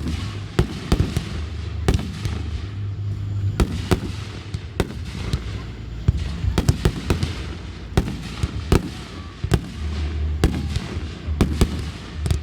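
Fireworks going off in a rapid, irregular series of sharp bangs and crackling pops, dozens of reports in a few seconds.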